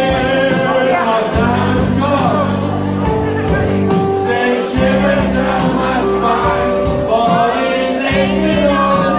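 A man singing into a microphone over a loud backing track of held low notes.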